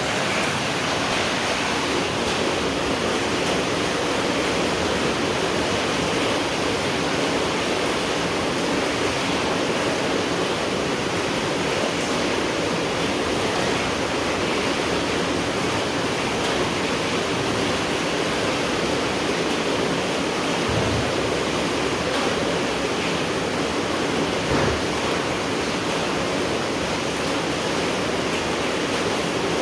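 Steady heavy rain falling at night, an even rushing hiss with no breaks. Two soft low thumps come through, about twenty and twenty-five seconds in.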